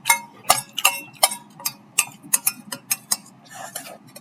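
An eating utensil clinking and tapping against a bowl while the last bites of noodles are scooped up, in quick irregular sharp clicks, about three or four a second, each with a short ring.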